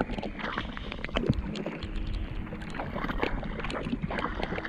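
A hooked barramundi thrashing and splashing at the surface beside a small boat, with scattered sharp clicks and one louder knock about a second in.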